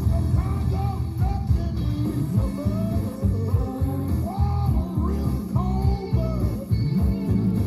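Rock music with a sung vocal from a 1980s Budweiser radio commercial, played back from an off-air cassette recording.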